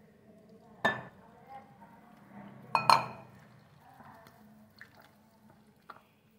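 Sharp clinks against a glass mixing bowl while water is poured in and rice-flour achappam batter is mixed by hand. There is one clink about a second in and a louder quick double clink near three seconds, with fainter taps later.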